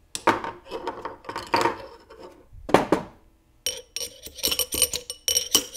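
Steel snap ring clicking and scraping as it is pushed down the Muncie main shaft toward its groove, then a quick run of light taps from a steel punch on the ring, ringing metallically, as it is seated in the groove behind the rear bearing.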